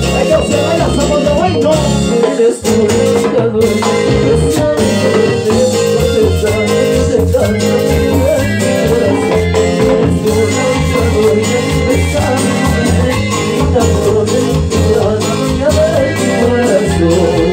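Live Latin dance band playing, with singers at microphones over saxophone, drum kit and congas in a steady dance rhythm; the sound drops out briefly about two and a half seconds in.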